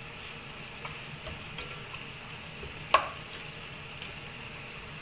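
Pork belly cubes and onion sizzling steadily in a stainless steel pot as they are stirred with a plastic spatula, with light scraping clicks and one sharp knock of the spatula against the pot about three seconds in.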